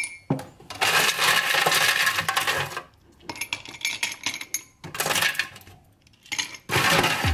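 A porcelain mug being handled on a shelf among plastic-wrapped groceries: clinks and rustling in four bursts with short pauses between them.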